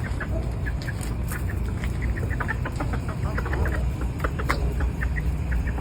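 Backyard chickens clucking, with many short separate calls scattered throughout, over a steady low rumble.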